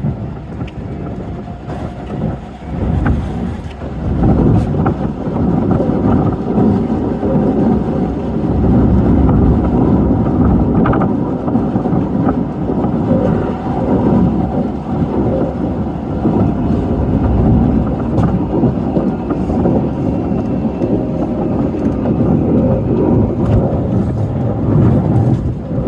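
Keisei Evening Liner train running on the Keisei Main Line, heard from inside the front car: a steady rumble of wheels on the rails that grows louder after about four seconds.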